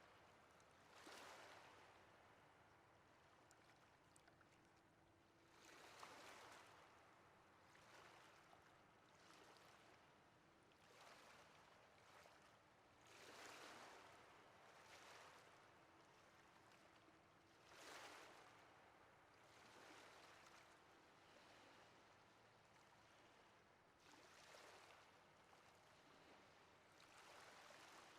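Faint ocean waves washing on a shore: soft surges of surf hiss that rise and fall irregularly every few seconds over a steady low wash.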